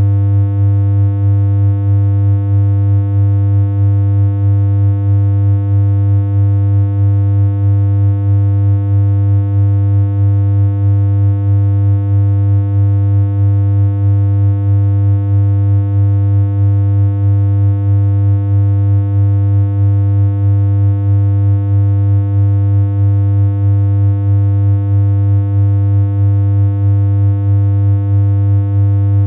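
Synthesized electronic hum: one low, buzzy tone held steady without any change in pitch, its loudness rippling slightly at an even pace.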